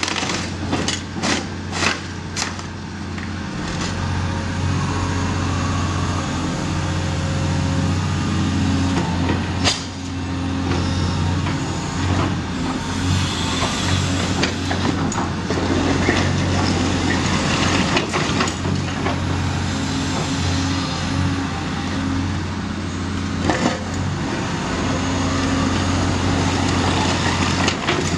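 Caterpillar 336E hydraulic excavator's diesel engine running steadily while its sorting grapple tears into a brick wall. Bricks and rubble clatter down in a quick run of knocks in the first few seconds, with a crash near ten seconds, a long stretch of crumbling, falling debris through the middle and another knock later on.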